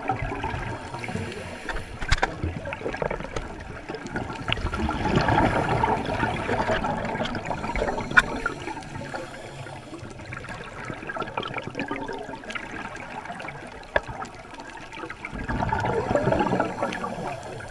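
Underwater recording of scuba regulator exhaust bubbles gurgling in surges, the loudest around five seconds in and near the end, with a few sharp clicks.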